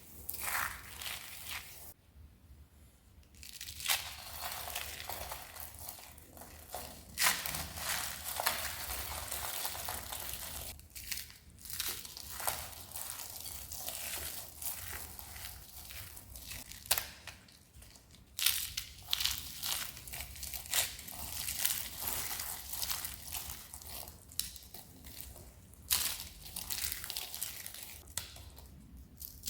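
Dry soap being crushed and crumbled by hand, a dense run of crisp crackling crunches broken by brief pauses.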